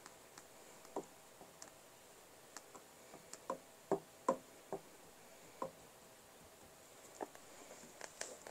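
A hand patting and smoothing sand in a clear plastic tub, giving a faint, scattered series of light knocks and clicks, the loudest two close together near the middle.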